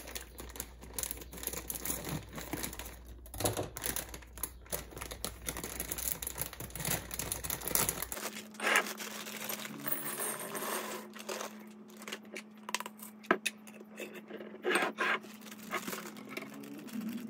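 Plastic pasta packets crinkling and being torn open by hand, with many short sharp crackles, and dry penne clattering into a glass jar.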